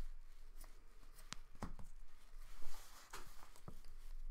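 Trading cards being handled and flipped through: several light clicks and taps, with a short rustle of card stock about three seconds in.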